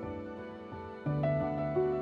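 Soft background music led by piano-like sustained notes, with a new lower note coming in about a second in.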